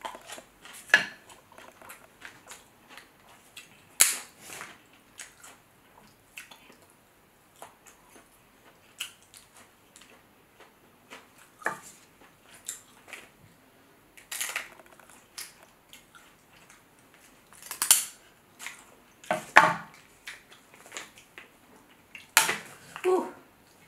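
Close-up eating of a seafood boil: irregular sharp cracks and snaps of crab and shrimp shells being broken and peeled by hand, with wet chewing and smacking between them. The loudest snaps come about four seconds in and again from about eighteen seconds on.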